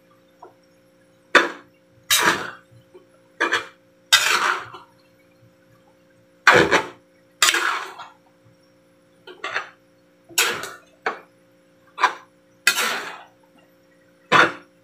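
A metal utensil scraping and clinking against a large stainless steel bowl as cooked rice noodles are tossed and turned: about a dozen separate, irregularly spaced scrapes and clinks, some short and sharp, some drawn out, with a pause in the middle.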